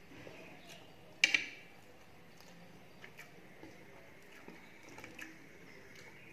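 Close-up eating sounds: chewing a mouthful of rice and fish curry and fingers mixing rice on a plate. One sharp, loud click comes about a second in, followed by smaller, faint wet clicks.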